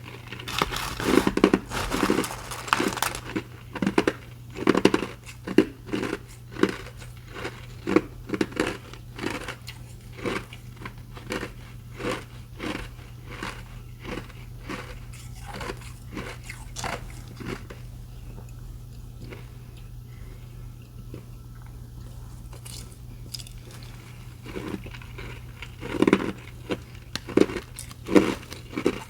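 Ice being bitten and chewed close to the microphone: a steady run of crisp crunches, about two a second. There are clusters of louder bites about a second in and near the end, and softer chewing midway.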